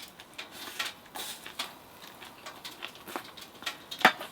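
Eating sounds: chewing and chopsticks or a spoon tapping on dishes, in small irregular clicks, with one sharp clink about four seconds in.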